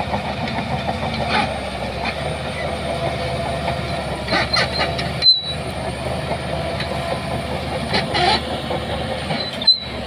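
Heavy earthmoving machinery running steadily: diesel engines with a few short metallic clanking rattles about one and a half, four and a half and eight seconds in. The sound cuts out for an instant about five seconds in and again near the end.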